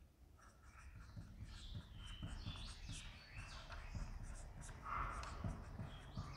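Faint marker pen squeaking and scratching across a whiteboard in many short strokes as words are written.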